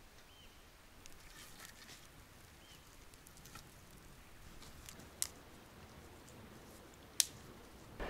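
Faint crackles and clicks of kindling being handled and broken to start a campfire, with two sharp snaps about five and seven seconds in.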